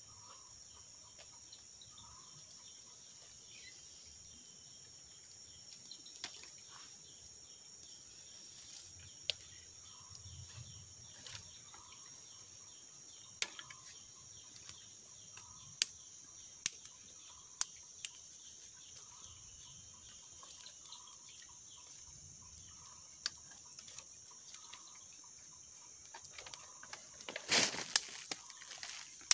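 Steady high-pitched insect chorus, with faint short calls every second or two and scattered sharp clicks. A brief louder noise comes near the end.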